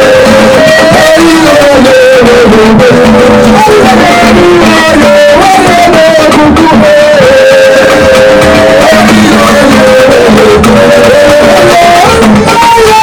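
A man singing a local song over instrumental accompaniment, one continuous melody that moves in steps and is loud throughout.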